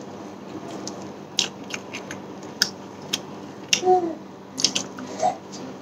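Close-up eating sounds of a person chewing a mouthful of rice and curry: a string of sharp, wet mouth clicks and smacks, about one or two a second.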